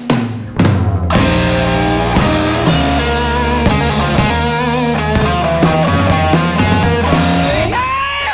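Rock band playing a blues-rock instrumental passage: electric guitar over bass and drums. A drum hit rings out at the start, the full band comes in about a second in, and a note slides upward near the end.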